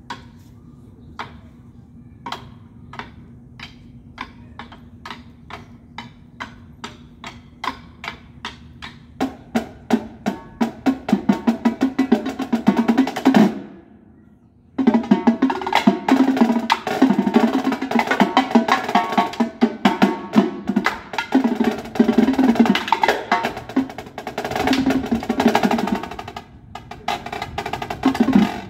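Two percussionists playing drums with sticks: separate strokes that come faster and louder, building into a dense crescendo that stops suddenly a little past halfway. After about a second of silence, loud, fast drumming starts again and carries on.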